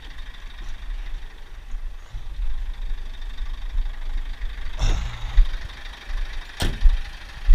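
Scania truck's diesel engine idling with a steady low rumble. Two sharp knocks come about five and six and a half seconds in.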